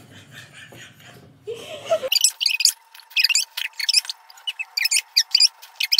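Faint muffled laughter. About two seconds in it switches suddenly to a high-pitched, squeaky sped-up voice effect in quick bursts, with a faint steady tone underneath.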